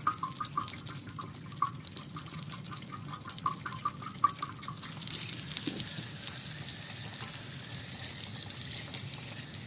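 Water draining out of an RV water heater tank through the open anode-rod port as the tank is emptied for winterizing. It gurgles with irregular glugs at first, then about five seconds in turns into a steady rushing flow.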